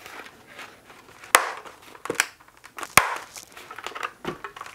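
AGV K6 helmet's fabric-covered liner pads being pressed back into the shell, a rustle of fabric and foam with a few sharp clicks as the pads snap into place, the loudest two about a second and a half apart.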